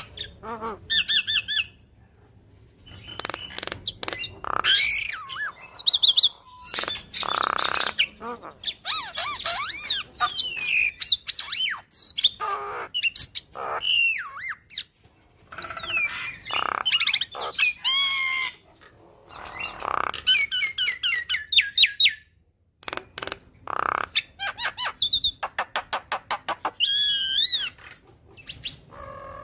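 Javan myna (jalak kebo) singing a long, varied chattering song. It mixes rapid rattling trills, gliding whistles and harsh squawks, broken by a few short pauses.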